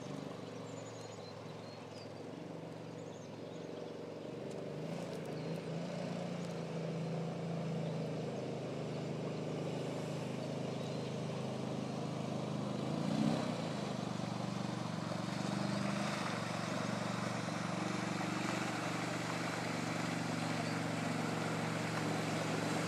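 Honda Rincon ATV engine running at low, steady revs as the quad wades slowly through swamp water, getting louder as it approaches, with a brief rev about halfway through. Water splashing off the tyres joins in toward the end.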